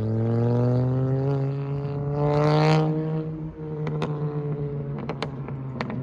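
Straight-piped VW Jetta 2.5 five-cylinder accelerating past, its exhaust note rising and loudest about two and a half seconds in. About a second later the throttle closes and the exhaust pops and crackles in a run of sharp cracks over the lower, falling-back engine note.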